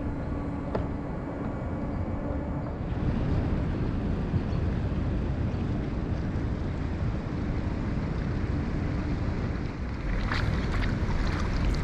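Wind buffeting the microphone out on the river, a steady low rumble, with a faint steady hum underneath in the first few seconds. Near the end comes a run of short splashes.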